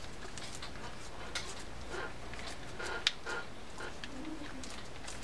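Penn Battle II 4000 spinning reel cranked by hand, the rotor turning quietly with only a few faint clicks, running smoothly on freshly fitted main and pinion gears.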